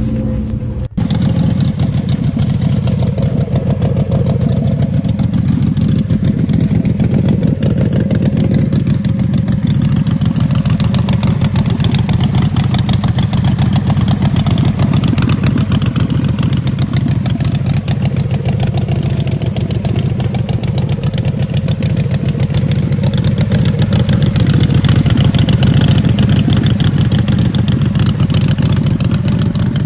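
Motorcycle-type engine idling and running steadily with a fast, even firing rumble, growing slightly louder in the later part.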